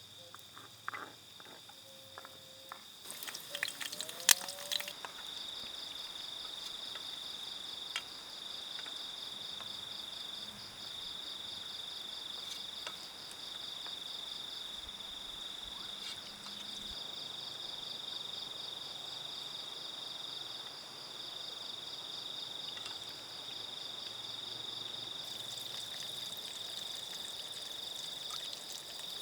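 Insect chorus trilling steadily at a high pitch, one voice pulsing rapidly. A few sharp clicks and knocks come about three to five seconds in, before the chorus settles.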